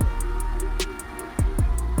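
Background music with a steady beat: deep kick-drum strikes under a fast, even run of hi-hat ticks, with guitar.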